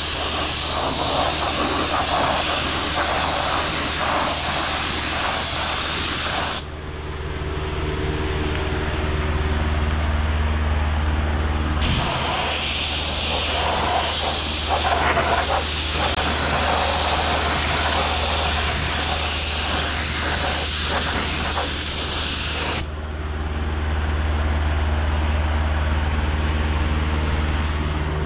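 Compressed-air gravity-feed spray gun spraying automotive primer: a steady hiss of air and atomised primer that cuts off about seven seconds in, starts again about five seconds later, and cuts off again near the end. A steady low machine hum runs underneath throughout.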